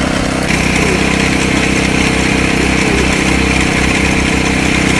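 Motor-driven sugarcane juice crusher running steadily, with a higher whine joining about half a second in. It cuts off at the end and winds down.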